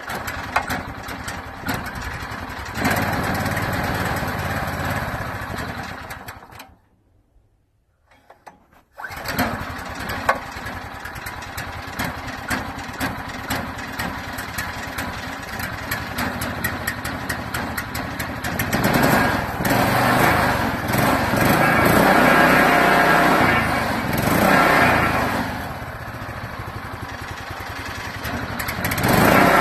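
Subaru 9 hp single-cylinder engine pull-started cold on choke. It runs for a few seconds, dies about six seconds in, and catches again on another pull about nine seconds in. It then runs unevenly, its sound swelling and easing, a new cold engine that needs warming up or a little more choke.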